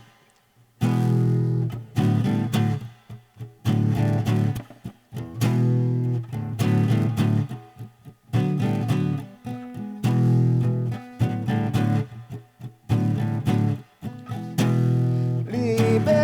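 Guitar playing a song's instrumental introduction: repeated strummed chord phrases with short breaks between them, starting after a brief pause about a second in.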